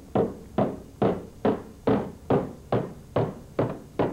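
A small hammer lightly tapping the edge of a riveted sheet-metal patch on a car's lower body panel. About ten even taps come a little over two a second, each ringing briefly. The patch edges are being set in about an eighth of an inch so that body filler can cover them.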